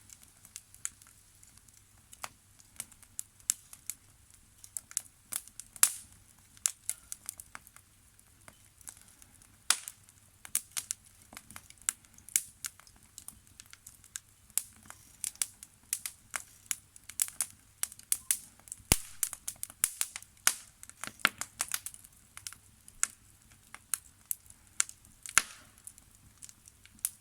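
Campfire of burning wood crackling, with irregular sharp pops and snaps, a few much louder than the rest.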